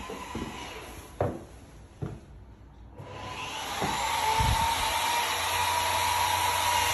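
A few soft knocks in the first two seconds, then a brief drop-out. About three seconds in, an electric motor starts up and runs steadily as a hiss with a whine, louder from about four seconds on.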